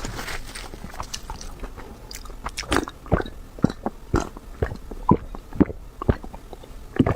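Close-miked eating: a person chewing and biting food, with an irregular run of short, sharp mouth clicks that come thicker and louder in the second half.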